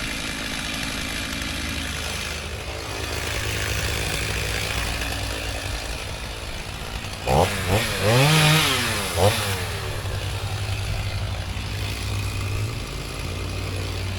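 Two-stroke chainsaw running at idle, revved up and back down about three times near the middle.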